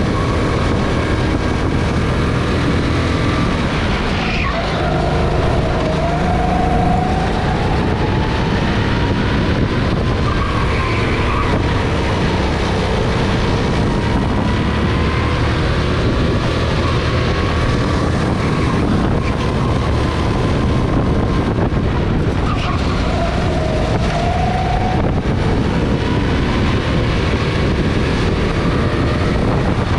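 Go-kart engine running flat out, heard onboard, its pitch climbing and dropping again and again as the kart speeds up and slows through the lap.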